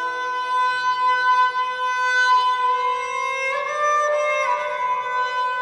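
Esraj, the Indian bowed string instrument, playing a long held note that slides up in pitch about halfway through.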